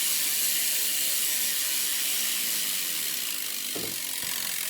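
BMX rear hub's pawls clicking in a fast, loud buzz as the rear wheel freewheels, slowly getting quieter as the wheel loses speed.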